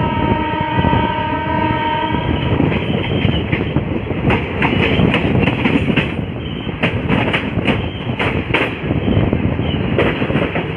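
Moving passenger train heard from an open door: a train horn sounds for about the first two seconds over the running rumble. Then the wheels clatter in irregular clicks over rail joints and points as the train rolls into a station.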